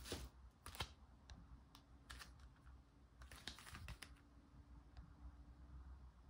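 Faint, scattered light clicks and taps from a CD album package and its cardboard and plastic parts being handled.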